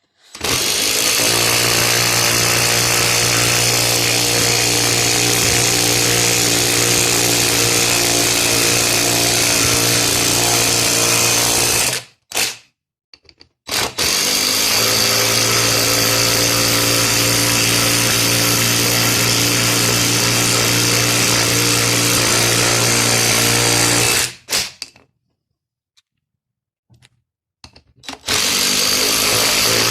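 Dewalt cordless 18V tool, most likely the DCF885 impact driver, driving lag screws into wood. It runs steadily for about ten seconds per screw and stops sharply: twice in full, then a third run starts near the end.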